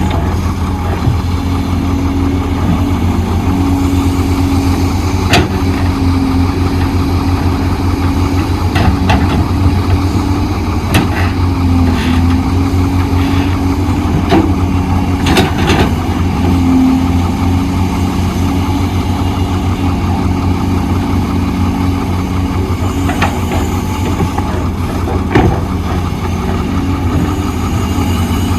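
Heavy diesel construction machinery running steadily with a low throb, its engine note shifting a little as it works, with scattered clanks and knocks.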